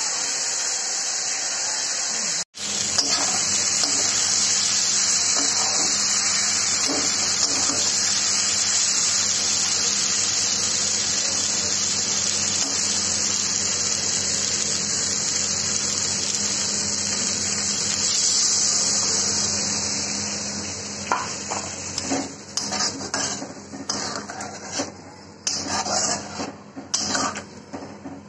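Potato and paneer pieces sizzling steadily as they fry in oil in a metal kadai, the sound cutting out for an instant a couple of seconds in. In the last several seconds the sizzle dies down and a metal spatula scrapes and clinks irregularly against the pan as the curry is stirred.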